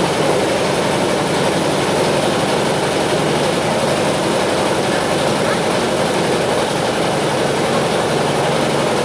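A steady, unbroken engine-like drone with a low hum.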